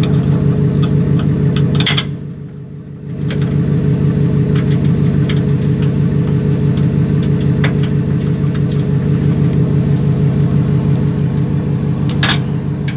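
Ford Raptor pickup's engine idling steadily, running again after its fuel pump driver module was replaced, with scattered light clicks over it. The level dips briefly about two seconds in.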